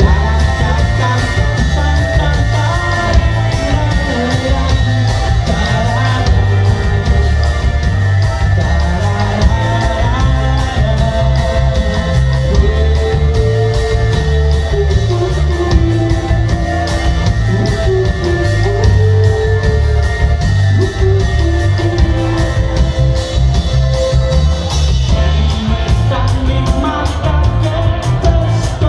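Live band music: drums and bass guitar driving steadily underneath, with guitar and a melodic lead line on top.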